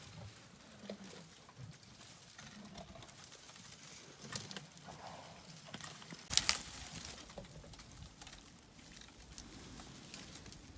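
Faint rustling and scattered knocks of animals moving about, with one sharper, louder knock a little past halfway.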